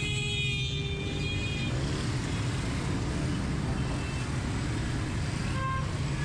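Street traffic, with motor engines rumbling steadily and unbroken. A high, steady, pitched tone sounds near the start for about a second and a half.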